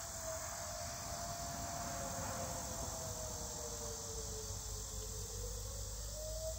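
Federal Signal STH-10 outdoor warning siren malfunctioning: its steady tone sags slowly in pitch over a few seconds, then climbs back up near the end.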